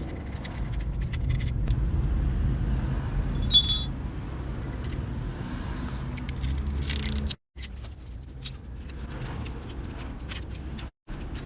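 Honda CBR1000RR inline-four engine running steadily at low revs, with a single sharp metallic clink about three and a half seconds in. The sound cuts out briefly twice.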